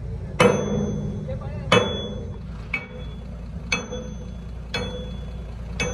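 A hammer striking steel: six ringing clangs about a second apart, the first two the loudest, over a steady low rumble.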